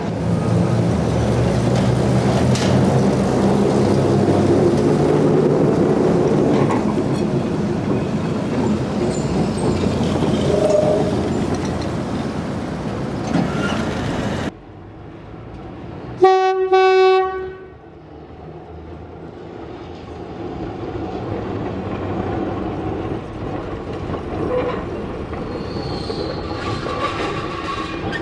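Electric tram running along the track, a steady rumbling of motors and wheels on rails. About halfway the sound cuts off abruptly, then comes one steady horn blast about a second and a half long, followed by quieter running.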